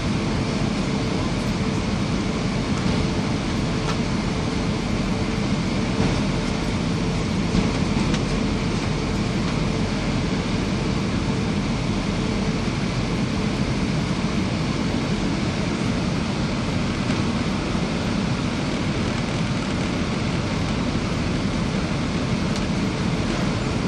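Steady cabin noise inside an Airbus A320: a constant rush of engine and airflow noise, with a faint steady hum that fades about halfway through.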